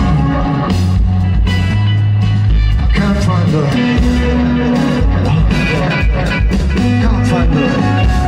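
Live rock band playing loudly: electric guitar over bass and drums, a stretch without singing.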